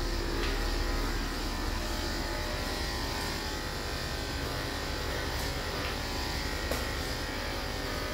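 Corded electric dog-grooming clippers buzzing steadily as they shave through a dog's heavily matted coat.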